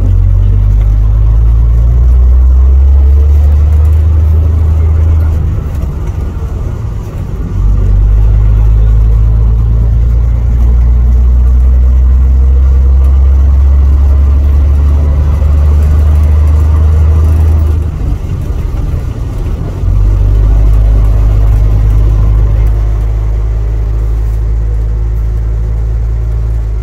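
Double-decker bus engine pulling the moving bus, heard from inside on board: a loud, low, steady drone that eases off twice, about six seconds in and again about eighteen seconds in, then picks up again each time.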